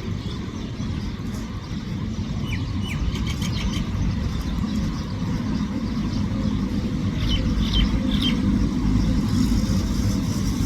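Steady low rumble of road traffic with a few short sparrow chirps, a couple about three seconds in and a few more around seven to eight seconds in.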